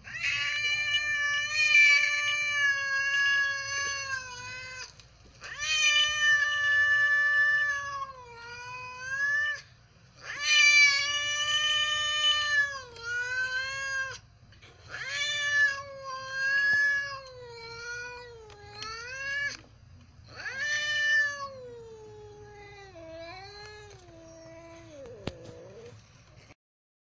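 A domestic cat yowling in anger: a run of about ten drawn-out, pitched wails, each one to several seconds long and dipping in pitch at its end. The last few are lower and quieter. It is a threat yowl from a cat warning someone off.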